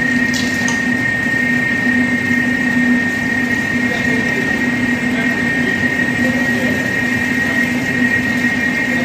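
Industrial IQF freezer line running: a steady, loud machine noise with a constant high whine and a low hum.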